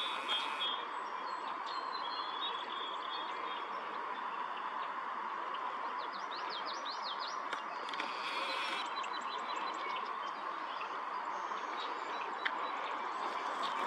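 Small songbirds chirping in short calls, with a quick run of rising notes about six seconds in, over a steady rushing background noise.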